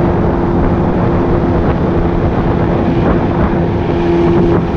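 Outboard motor of an aluminium jon boat running at a steady cruising speed, a constant engine note under the rush of water and wind.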